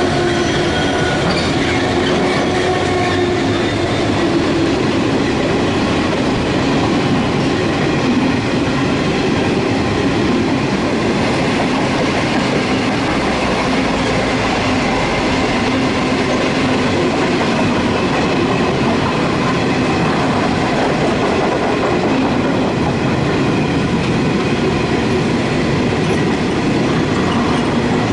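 A long wheat train's grain hopper wagons rolling past at a steady speed: continuous wheel-on-rail noise with clickety-clack over the rail joints. The drone of the diesel locomotives at its head trails off in the first few seconds.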